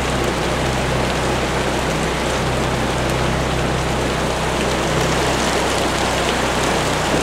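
Heavy rain falling steadily on and around a car, heard from inside the cabin, with a steady low hum underneath.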